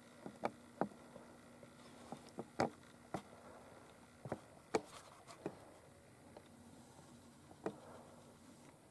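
About a dozen light, sharp clicks and taps at irregular intervals, the loudest a little over two and a half seconds in and near the five-second mark, over a faint steady hiss.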